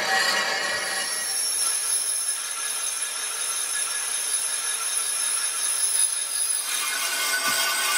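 Lathe tool cutting the inside of a spinning cast-iron truck brake drum: a steady high-pitched metallic squeal with ringing tones, which shifts to a broader hiss about seven seconds in.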